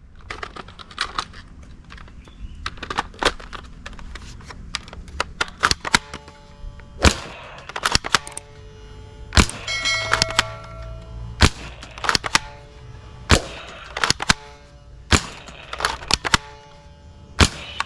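Single gunshot sounds at irregular intervals, a dozen or so loud cracks among fainter clicks, over a low steady hum. A few short ringing tones sound around the middle.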